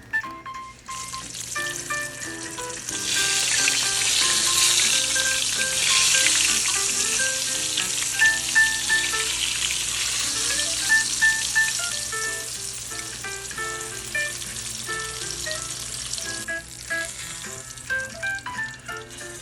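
Flour-dredged chicken pieces deep-frying in hot oil: a steady, dense sizzle that swells about three seconds in and eases off near the end. Light background music plays underneath.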